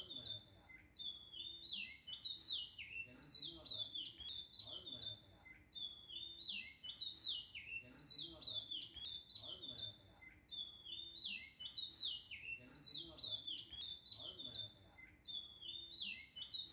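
A looped chirping background track: the same short run of bird-like falling chirps repeats about every two seconds, with a steady high whine underneath.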